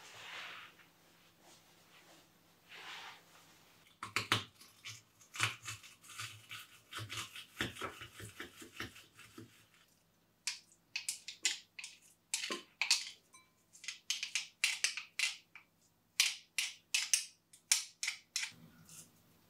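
Garlic crushed in a handheld garlic press, then scraped off the press's grid with a spoon: crunching strokes, then a quick run of sharp scraping clicks.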